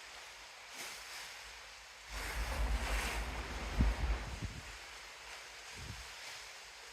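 Sea rushing steadily below with wind buffeting the microphone; about two seconds in a stronger surge of wash and wind rumble swells for two or three seconds, then settles back.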